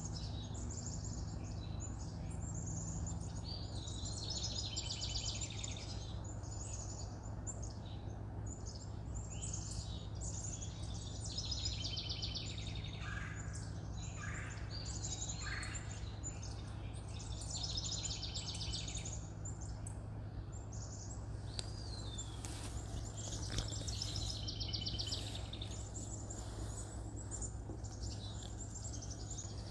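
Wild birds singing and calling outdoors, many short trilled phrases overlapping one after another, over a steady low hum.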